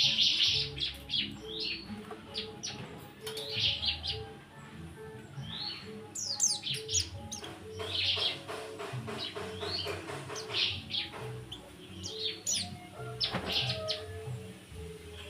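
Caged white-eyes (pleci) chirping and trilling in short, repeated bursts. Music plays steadily underneath.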